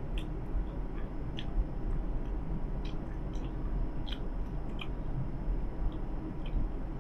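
Bubble gum being chewed close to a clip-on microphone: short, wet mouth clicks and smacks, irregular, about one or two a second, over the steady low rumble of a city bus.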